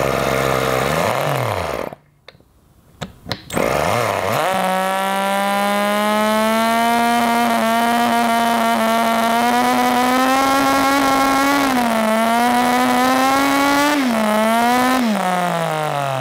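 Toyan 2.4 cc miniature Wankel rotary engine. It gives a short first burst of running, falls quiet for about two seconds with a few clicks, then catches about four and a half seconds in and runs on its own at full throttle with a high, steady buzz. Its pitch dips briefly twice near the end and then falls as it slows.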